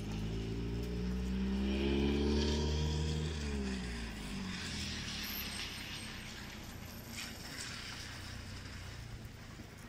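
A car drives past on the road below, its engine note swelling and then dropping in pitch as it goes by, fading after about four seconds into a fainter hiss.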